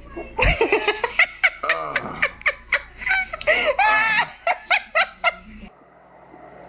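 Hearty human laughter in rapid repeated bursts, which cuts off suddenly about five and a half seconds in.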